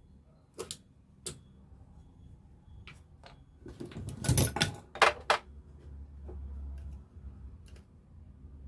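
Metal parts of a dismantled starter motor being handled: two sharp clicks about half a second and a second and a half in, then a cluster of louder clanks and rattles about four to five and a half seconds in.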